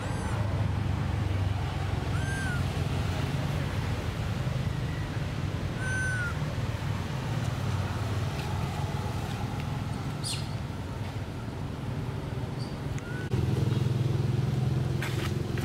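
Outdoor ambience dominated by a steady low rumble of engine traffic, which grows louder about three-quarters of the way through. A few short, high, arching chirps are heard, along with brief rustles near the end.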